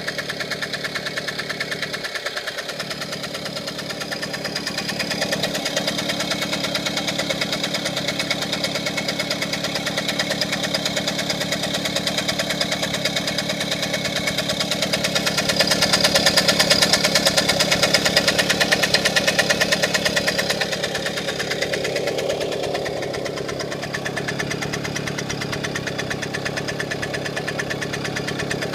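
1978 Suzuki JR50 mini bike's 49cc two-stroke single-cylinder engine running at idle, getting louder for a few seconds past the middle and then settling back.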